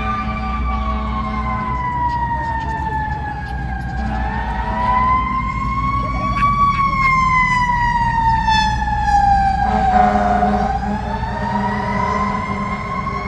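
An emergency vehicle's siren wailing, its pitch sliding slowly down and back up roughly every six seconds, over a steady low engine rumble.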